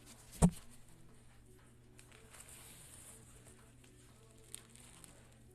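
A single loud, sharp thump about half a second in, then faint rustling and a couple of small clicks over a steady low hum.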